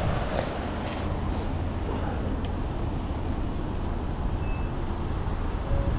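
Steady low rumble of vehicle traffic, with lorries moving around a goods depot.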